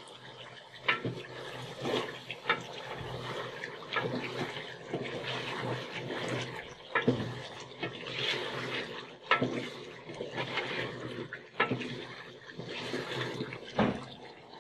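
Metal spatula stirring a wet meat curry in an aluminium pot, with liquid sloshing and churning and sharp clinks and scrapes of the spatula against the pot every second or two.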